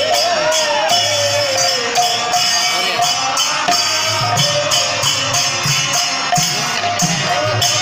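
Bengali kirtan music: khol drums beaten in a steady rhythm under a held harmonium melody, with the regular jingle of small hand cymbals.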